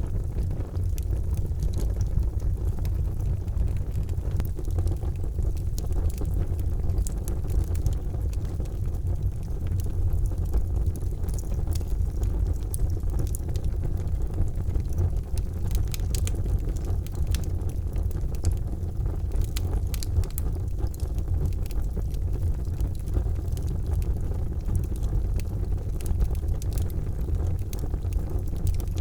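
Charcoal fire burning with frequent small crackles and pops over a steady low rumble.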